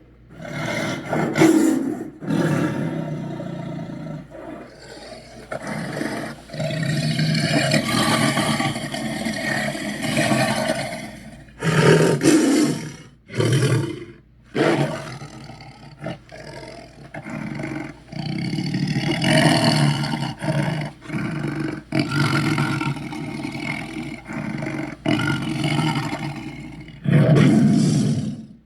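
Spinosaurus roar sound effects: a run of long, deep, rough roars, with several short sharp roars between them, about a second in, near the middle and near the end.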